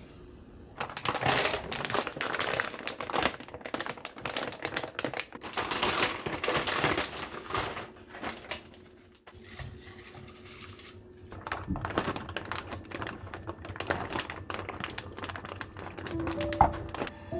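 Plastic food pouch crinkling and rustling as it is handled and squeezed out into a pot. The dense crackle comes in two long stretches with a short lull about halfway.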